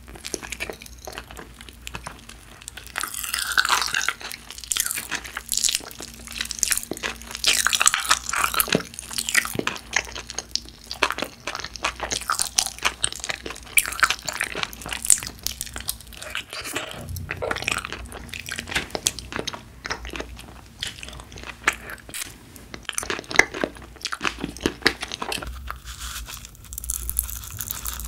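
Close-miked biting and chewing of Trolli galaxy jelly gummies: irregular crunching bites and wet chewing.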